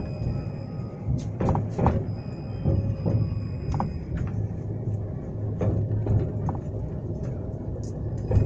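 Inside a moving 71-911 low-floor tram: a steady low rumble of the car running along the line, with irregular knocks and rattles from the wheels and body. A thin high whine comes in now and then.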